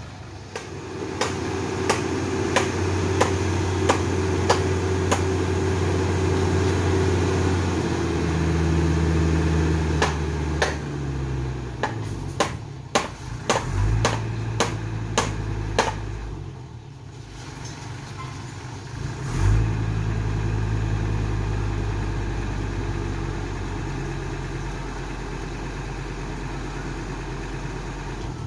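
Diesel engine of a truck carrying a Furukawa Unic crane, running at raised speed to drive the crane's hydraulics, its pitch shifting up and down several times as the crane works, with a short dip about two-thirds of the way through. Over it come sharp knocks: evenly spaced in the first few seconds, then a quick cluster a little before the dip.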